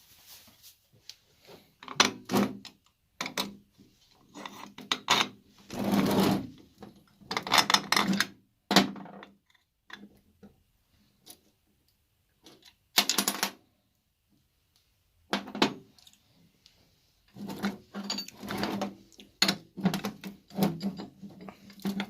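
Metal winch parts and hand tools clinking and rattling in irregular bursts with short pauses between, as a Dragon winch is taken apart. Some bursts are quick runs of ticks.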